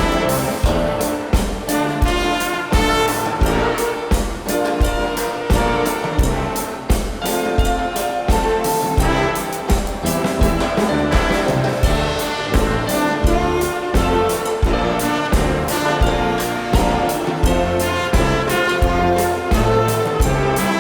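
Orchestral music led by brass, trumpets prominent, over a steady beat of about two strokes a second.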